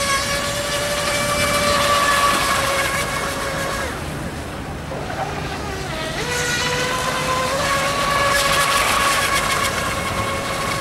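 The radio-controlled Genesis catamaran's Leopard 3660 brushless motor on 5S, whining at a steady high pitch as the boat planes at speed. The whine eases off about four seconds in and climbs back up about two seconds later.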